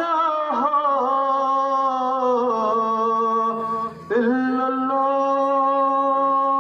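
A man reciting the adhan, the Islamic call to prayer, in long drawn-out melodic phrases. The first phrase wavers and then settles on a held note. It breaks off briefly for a breath about four seconds in, and a new long note is held steady.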